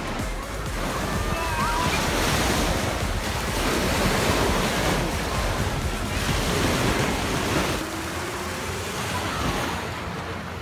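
Sea waves breaking and washing up a sandy beach, the surf swelling and easing, with wind buffeting the microphone.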